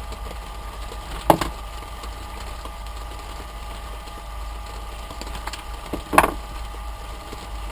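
Electric blower running with a steady low hum, with two sharp knocks, about a second in and again about six seconds in.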